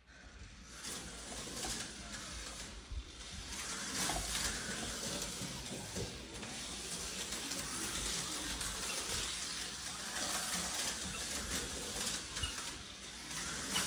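TYCO HO-scale slot car running laps on a plastic track: a steady whirring, rattling buzz from the small motor and the car on the track, with a few sharp clicks.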